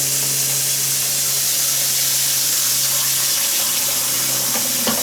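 Kitchen tap running steadily into a pot at the sink, filling it with water to soak.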